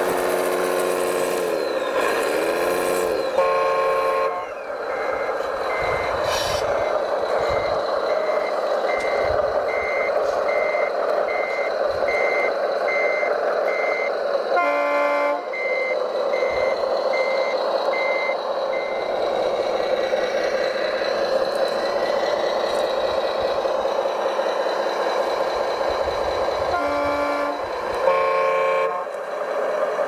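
Large RC model truck running, with steady engine noise and a reversing beeper going about once a second for some thirteen seconds. Short horn toots sound about four seconds in, midway, and again near the end.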